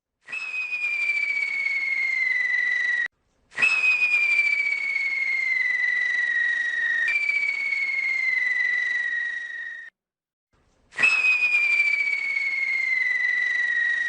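Fidget spinner spun with burning matchsticks on it: a shrill whistle over a hiss, each stretch sliding slowly down in pitch. It comes in three stretches that start and cut off abruptly, with short silent gaps about three seconds in and near ten seconds, and jumps back up in pitch once midway.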